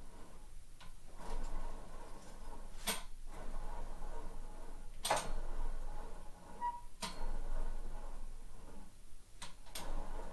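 Scattered sharp clicks and knocks, about six of them several seconds apart, over a faint rustle: tools and parts being handled.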